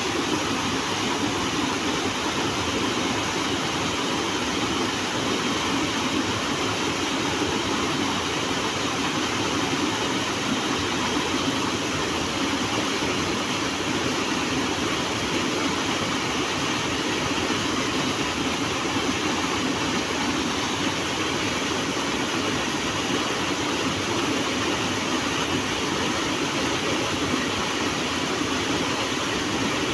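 Small waterfall pouring between boulders into a river pool, a steady rushing of water.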